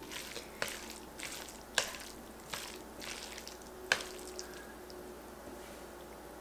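Wooden chopsticks stirring and tossing carbonara-coated ramen noodles in a pan, with wet, squishy noodle sounds and several sharp clicks of the chopsticks. The loudest clicks come about two and four seconds in, and it turns quieter near the end as the noodles are lifted.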